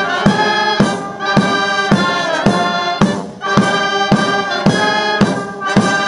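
Ceremonial military brass band with bass drums playing a march, brass chords on a steady drum beat about twice a second, with a short break about three seconds in.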